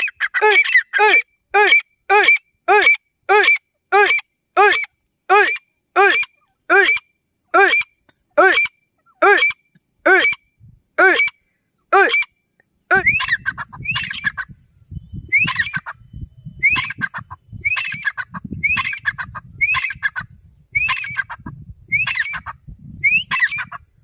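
Female grey francolin calling: a fast, even series of repeated arched notes, about two a second. About halfway through the sound changes abruptly to a run of shorter rising notes, a little slower, with a low rumble underneath.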